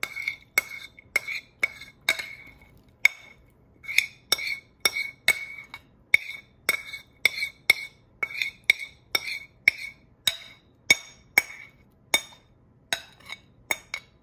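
Metal spoon clinking against a ceramic mixing bowl as granola mix is knocked and scraped out of it, about two clinks a second, each with a short ring at the same clear note.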